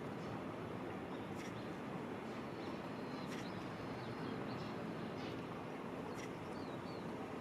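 Small songbirds giving brief, faint, high calls, several scattered single notes, over a steady low background hum.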